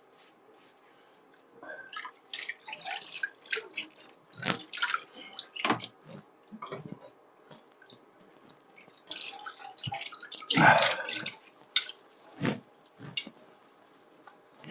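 Dishes being washed by hand in a kitchen sink: water splashing with irregular clinks and knocks of crockery, loudest a little past the middle.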